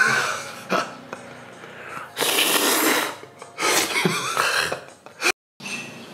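A man coughing and hacking in several loud, rough bursts, choking on baby powder that he has breathed in.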